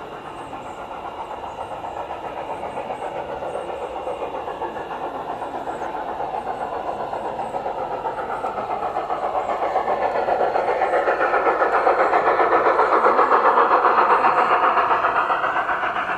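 Garden railway model train of flatcars rolling close past, its wheels clattering rhythmically over the track, growing steadily louder as it approaches and easing off slightly near the end.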